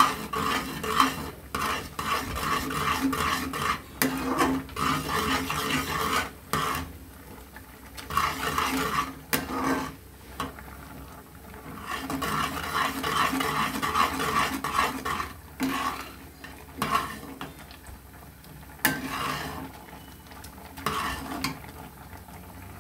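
Flat metal spatula stirring and scraping a thick, grainy mixture of reduced milk and sugar in a metal pot, with clinks against the pot's sides, in spells with quieter stretches near the middle and toward the end.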